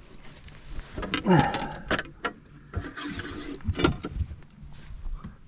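Irregular knocks and clatter of a caught bass and fishing gear being handled in a boat while the fish is measured, with a short falling vocal sound about a second in.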